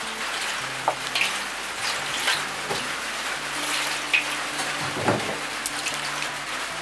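Steady hiss of rain on the roof, with water splashing as it is poured from a plastic jerrycan into a metal tray and chopped greens are rubbed and washed in it by hand. There are a few sharp splashes and clinks against the tray.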